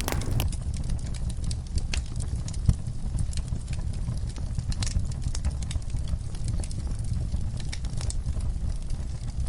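Fire burning in a fireplace: a steady low rumble of flames with scattered sharp crackles and pops, one louder pop a little under three seconds in.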